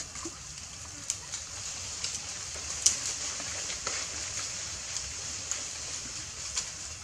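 Small splashes and drip-like ticks as young macaques wade and step through shallow, duckweed-covered water. The ticks are scattered, with the sharpest about three seconds in, over a steady high hiss.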